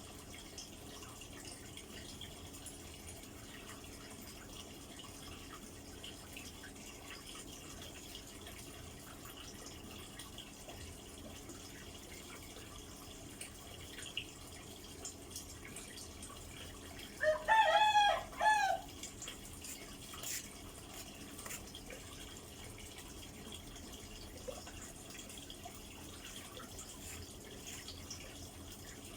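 A single wavering animal call, about a second and a half long and broken into two or three parts, about two-thirds of the way in, over a faint steady hiss with scattered small ticks.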